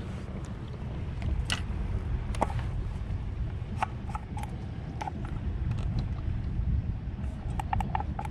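Wind buffeting the microphone as a steady low rumble, with scattered sharp clicks and short high chirps.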